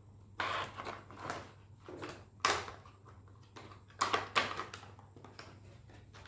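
Packaging and small items being handled and opened: a string of short rustles and crackles, the loudest about two and a half seconds in and again around four seconds.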